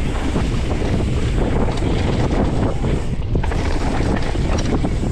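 Wind rushing over the microphone of a camera on a downhill mountain bike, with the bike's tyres and frame rattling over the rough trail in a steady rumble.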